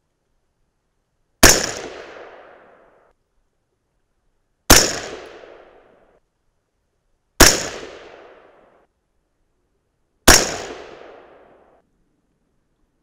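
Four rifle shots from an AR-15 firing handloaded .223 Remington rounds, spaced about three seconds apart. Each is a sharp crack followed by about a second and a half of echo dying away.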